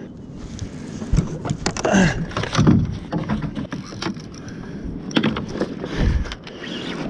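Water sloshing against a plastic fishing kayak, with knocks and bumps on the hull, while a hooked fish is brought alongside.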